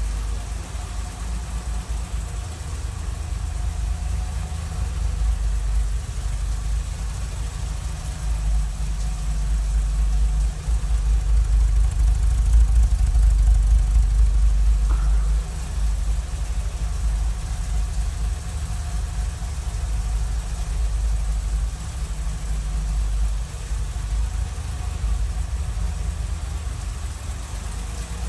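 1978 BMW E12 528i's 2.8-litre M30 straight-six idling steadily, still warming up after a cold start.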